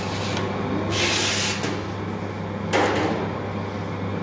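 Metal baking tray loaded with bread dough slid onto a tray-rack shelf: a scraping slide about a second in, then a single clank near the three-second mark, over a steady low machine hum.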